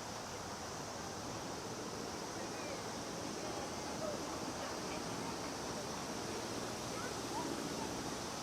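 Cicadas calling in a steady, high-pitched chorus over a wash of outdoor ambience with wind and faint voices.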